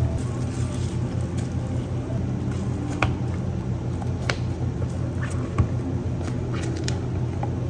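Steady low hum of café equipment with scattered light clinks and knocks of drink preparation at the counter; the sharpest knock comes about five and a half seconds in.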